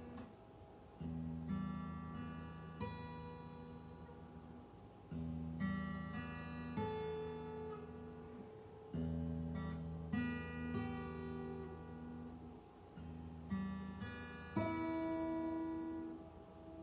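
Fender CD-60S dreadnought acoustic guitar with new D'Addario strings, played slowly: a chord is struck and left to ring about every four seconds, with single notes picked over it as it fades.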